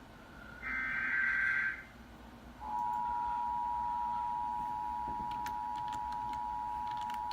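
Emergency alert broadcast on a radio: a screechy burst of digital alert-header data tones about a second long, then a steady two-tone attention alarm starting about two and a half seconds in, the signal that precedes a spoken severe-weather statement.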